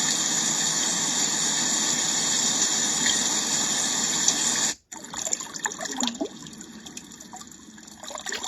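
A sound machine's speaker at maximum volume playing a steady rushing, water-like noise track, which cuts off a little before five seconds in as the machine switches to its next, quieter and more uneven nature-sound track.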